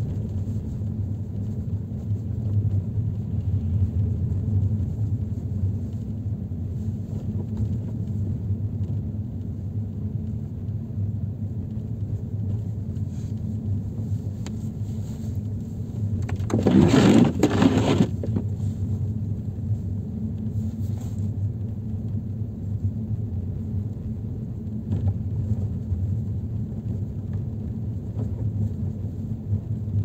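Steady low rumble of a vehicle driving along a snow-covered road. A louder rushing, scraping noise lasts about a second and a half, about seventeen seconds in.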